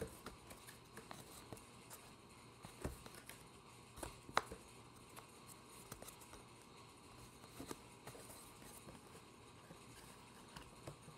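Trading cards being handled and moved about: faint scattered taps and light clicks, with one sharper click a little over four seconds in.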